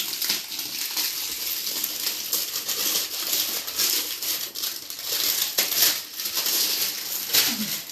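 The wrapping of a boxed sweets packet crinkling and rustling continuously as it is unwrapped by hand.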